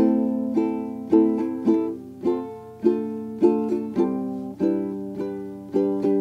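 Background music on a plucked string instrument, chords struck about every half second, each ringing out and fading before the next.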